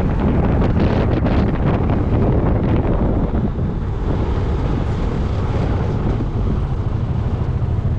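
Heavy wind buffeting the microphone on a moving Yamaha Majesty 400 scooter, with the scooter's engine and road noise underneath. The gusting is choppier for the first three seconds or so, then steadier.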